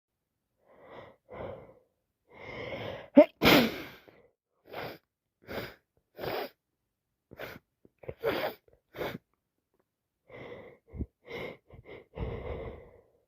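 A woman in an allergic sneezing fit: gasping in-breaths build to a sharp, loud sneeze about three seconds in, followed by a string of short breathy gasps and smaller sneezes.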